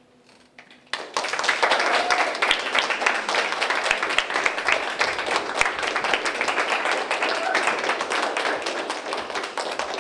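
Audience applauding, starting suddenly about a second in after near silence and continuing as a steady, dense clatter of hand claps.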